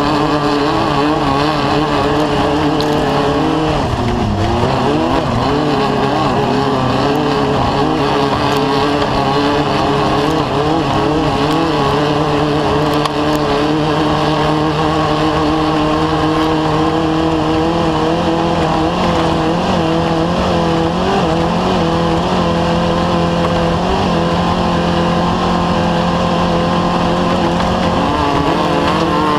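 Off-road race vehicle's engine running hard at high revs, its pitch wavering up and down with the throttle, with a drop and climb in revs about four seconds in.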